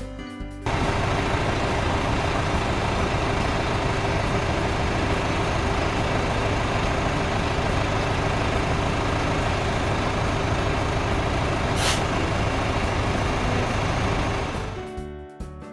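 Sound effect of a school bus engine running steadily, a dense mechanical noise with a low hum, with a brief hiss about twelve seconds in. Background music gives way to it just under a second in and comes back near the end.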